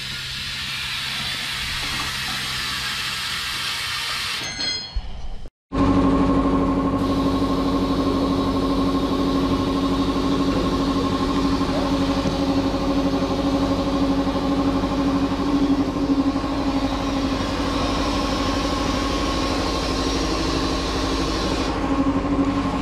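A steady hissing for the first five seconds, then, after a short break, an engine running at a steady idle.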